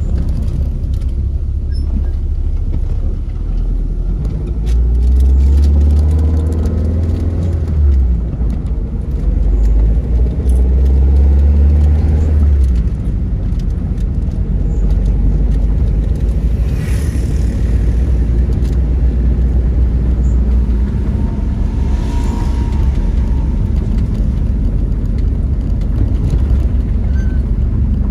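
A car driving along a concrete road, heard from inside: a steady low rumble of engine and road. The engine note rises as it speeds up about five seconds in.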